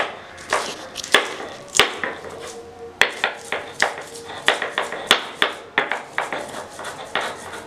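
Garlic cloves being crushed and ground with a roller on a flat grinding board: repeated knocks and crunching strokes, about two a second, with scraping rubs between them.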